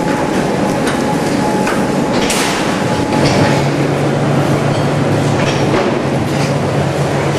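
Steady, loud machinery noise in a döner kebab production hall, with scattered knocks and clatter. A high steady whine stops about three seconds in, and a low steady hum carries on from there.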